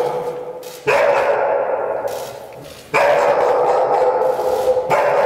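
Akita Inu dog barking loudly in long, drawn-out calls, about one every two seconds, each starting sharply and fading away.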